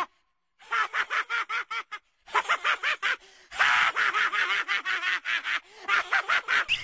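A cartoon voice laughing in rapid, evenly spaced short syllables, in several runs broken by brief pauses.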